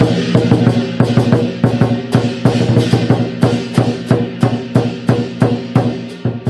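Chinese dragon dance percussion: a large drum beaten in a fast, steady rhythm of about four or five strokes a second, with cymbals clashing over it.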